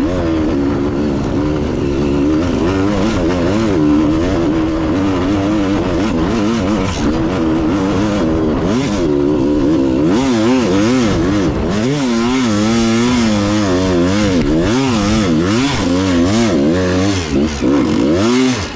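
Dirt bike engine working hard on a rough trail climb, its pitch rising and falling quickly and continually as the throttle is blipped on and off.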